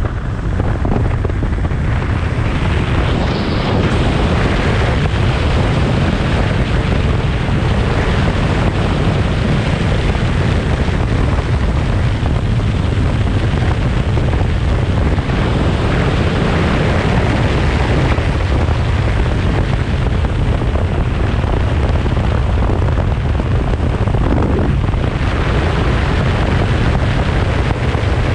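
Steady, heavy wind rumble on the microphone of a motorcycle-mounted camera at road speed, with the motorcycle's running noise blended in underneath.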